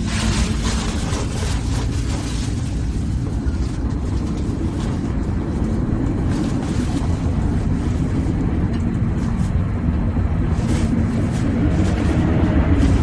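A steady, low mechanical rumble, like a motor or machine running, with a few faint clicks over it.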